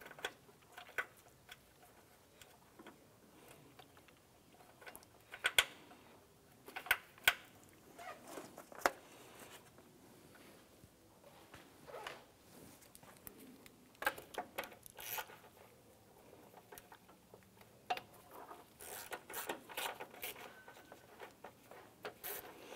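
Light, irregular metal clicks and clinks of bolts and hand tools being handled while bolts for the ABS module brackets are fitted and threaded in by hand, with a quicker run of clicks near the end.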